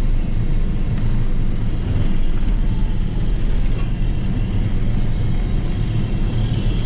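Diesel engine of a John Deere self-propelled forage harvester running steadily, a loud, even low rumble.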